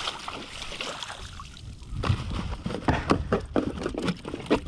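A speckled trout thrashing in a landing net at the surface beside a kayak, with water splashing for about the first second. From about two seconds in comes a run of sharp knocks and rattles as the net and flapping fish are lifted onto the plastic kayak.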